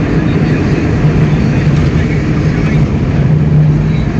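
Steady engine drone and road noise inside the cab of a moving car.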